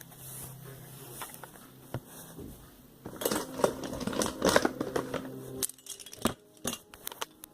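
Small hard objects being handled, a burst of rattling and clattering a few seconds in, then a handful of separate sharp clicks.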